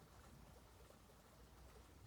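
Near silence: a faint, steady hiss of running water.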